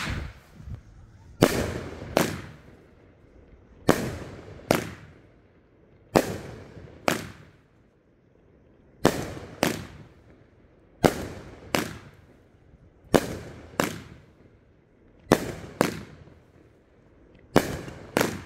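Happy Family 'Save' 10-shot firework cake firing shot after shot: pairs of sharp bangs under a second apart, a new pair about every two seconds. Each pair is a shell's launch thump followed by its burst in the air.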